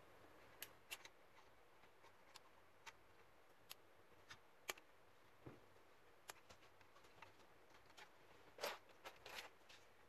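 Faint, scattered clicks and scrapes of metal tweezers and plastic wire connectors being worked on a small circuit board, with a short cluster of louder scrapes near the end.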